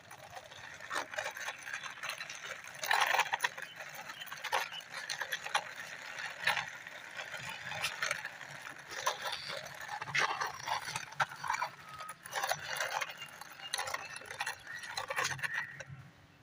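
Plastic toy three-wheeled auto-rickshaw being pushed by hand along a rough concrete surface, its plastic wheels and body giving an irregular clicking and scraping that stops shortly before the end.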